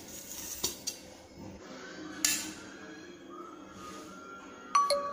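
Metal spoon clinking and scraping against a metal baking tray while spreading topping on a pizza base: two light clicks early, a short scrape about two seconds in, and a sharp ringing clink near the end.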